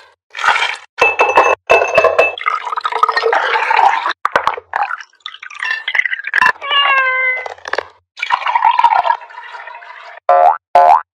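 Close-up drink-making sounds in quick succession: a steel muddler squashing mango chunks against a glass, then glass and ice clinking with liquid pouring and splashing, and a spoon stirring in a coconut shell. The sounds come as short separate bursts with brief gaps between them.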